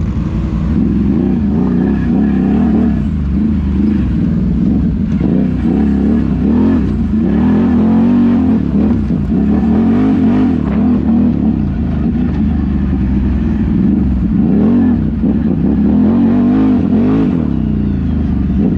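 Off-road vehicle engine revving up and down over and over, its pitch rising and falling every second or two.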